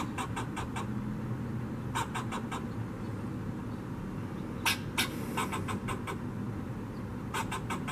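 Fox squirrel giving agitated alarm calls: four bursts of short, rapid barks, four to six barks each, the chatter of an upset squirrel.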